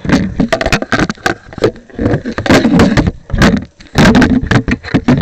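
Handling noise on a small camera's built-in microphone: rapid, loud knocks and rubbing as the camera is grabbed and jostled.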